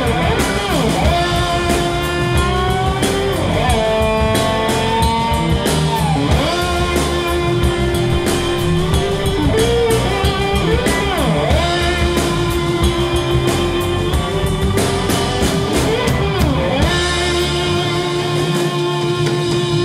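Live blues-rock band playing: electric guitars, including slide guitar, over bass, drum kit and organ. Guitar lines bend and glide up and down in pitch over a steady groove. The bass and kick drum drop away briefly near the end.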